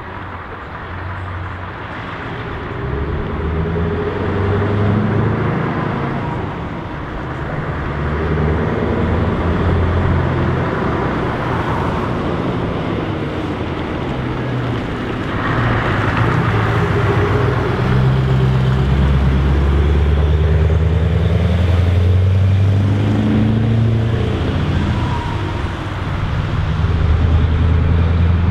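Scania R580's 16.4-litre V8 diesel engine pulling a loaded low-loader away under load, its low note rising and dropping back several times as it gathers speed. Surrounding road traffic runs beneath it.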